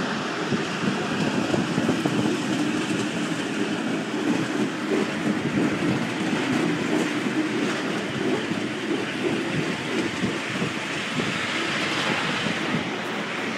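Battery-powered ride-on miniature railway train running along its narrow-gauge track: a steady rumble and clatter of small wheels on the rails.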